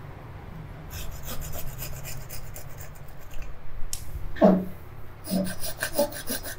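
Small hand saw cutting a branch on a mai vàng (yellow apricot) bonsai in quick back-and-forth strokes, about five or six a second, starting about a second in, pausing briefly near four seconds and then going on faster. A short falling sound about four and a half seconds in.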